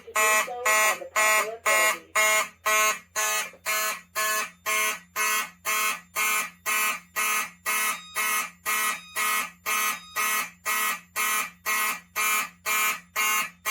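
Wheelock and Simplex fire alarm horns sounding in alarm, a harsh buzzing horn tone pulsing evenly about twice a second: the fire alarm system in alarm after a pull station has been activated.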